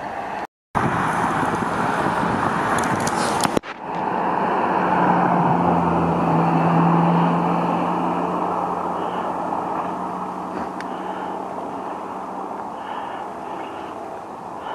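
Road traffic: a motor vehicle's engine and tyre noise swelling as it passes by and then slowly fading, over a steady wash of traffic and wind noise. The sound drops out briefly near the start.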